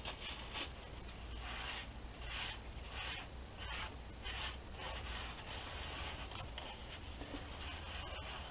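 Paper towel rubbing back and forth over the painted surface of a board, in a run of short strokes about two a second that grow fainter after about five seconds.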